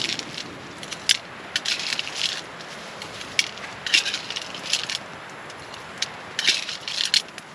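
Hand-cranked coffee grinder grinding beans: gritty crunching in uneven spells, with sharp clicks between them.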